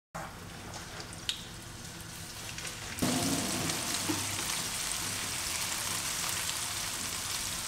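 Floured chicken strips sizzling as they fry in hot olive oil in a frying pan. The sizzle is faint at first, with a single click, then louder and steady from about three seconds in once the pan is full.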